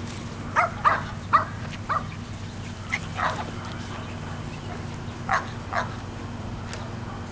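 Sheltie puppies yapping in play: a quick run of four high, sharp yaps in the first two seconds, a couple more about three seconds in, and two more past five seconds.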